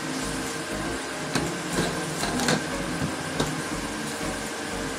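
Handling noise on a table: cables and plastic wrapping being moved about, with a few light knocks and clicks, over a steady hum.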